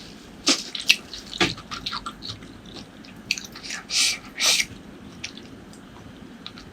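Close-miked wet mouth sounds of eating: a few sharp smacks in the first second and a half, then two short slurps about four seconds in.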